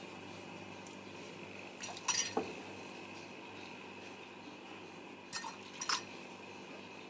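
Metal ladle clinking against a stainless steel pot and a ceramic mug as holy basil decoction is ladled out: two short groups of clinks, about two seconds in and again near six seconds.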